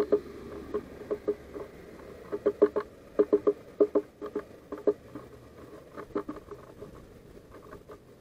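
Great tit hammering at a seed held under its feet, its beak knocking on the wooden feeder floor in quick irregular runs of taps that thin out toward the end.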